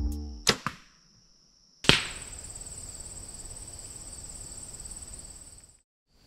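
A compound bow shot about two seconds in: one sharp crack as the string is released. Insects then drone in steady high tones until the sound cuts out near the end.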